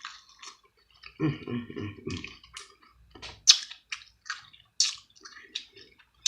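Close-up wet chewing and lip-smacking of someone eating seafood boil, a run of short, sharp, moist clicks.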